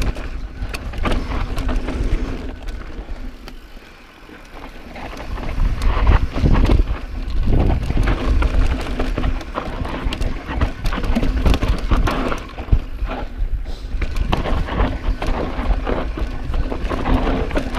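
Mountain bike ridden fast down a dirt singletrack: knobby tyres rumbling and scrabbling on the dirt, with the bike rattling and knocking over bumps. It eases off about three to four seconds in, then grows loud again.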